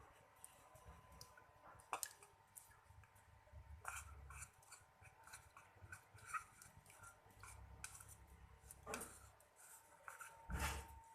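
Faint scraping and clicking of a utensil working a small mix of talcum powder and a few drops of eucalyptus oil in a container, with a few louder knocks against the container.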